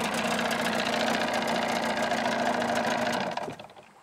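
1979 Evinrude 35 hp two-stroke outboard running steadily with its engine cover on, reading around 86 on a decibel meter. It dies away near the end as it is shut off.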